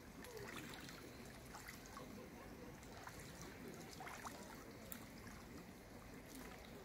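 Faint splashing of a mallard drake bathing in the water, a few soft splashes over a low steady hiss.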